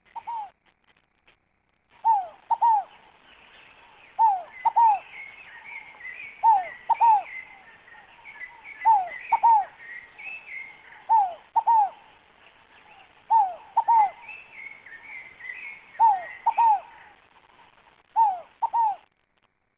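Scaled dove (rolinha fogo-apagou) calling: a two-note coo, each note a short falling whistle, repeated about every two seconds, eight times. Fainter twittering chirps of another small bird run behind it through the middle.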